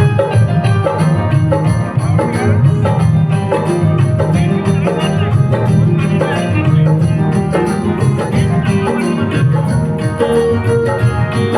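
Music with a steady beat, played loud over a sound system.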